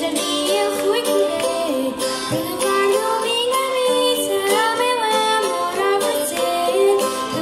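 Madeiran folk group performing: several voices singing a melody together over strummed small guitars.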